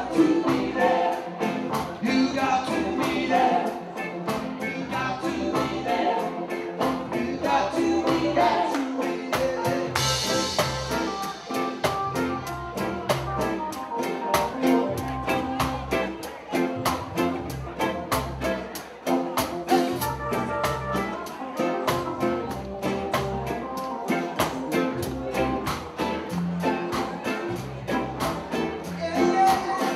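Live band music with a steady, driving beat and a woman singing.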